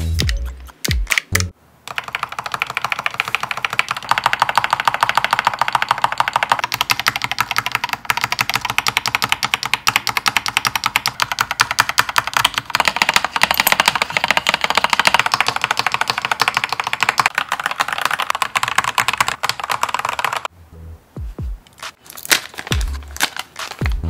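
Stabilized keys on an Akko Doraemon Macaron 5108B mechanical keyboard pressed over and over in very fast succession, a dense stream of clacks. The tone of the clacking shifts about a third of the way through and again around halfway. Background music with a beat plays before the clacking starts and after it stops.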